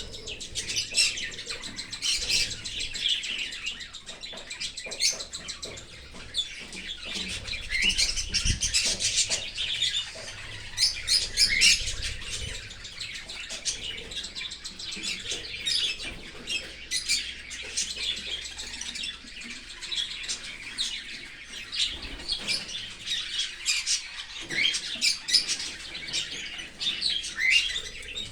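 Cockatiels chirping in quick, overlapping calls, with short rising and falling notes following one another without a break.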